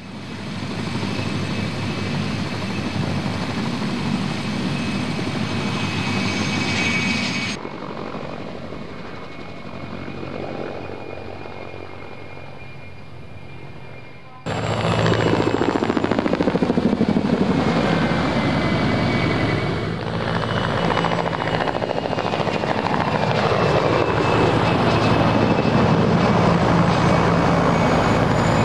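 Mil Mi-2 helicopter flying a display, its twin turboshaft engines giving a high whine over the rotor noise. The sound drops quieter about a quarter of the way in, then comes back louder, its pitch sweeping up and down.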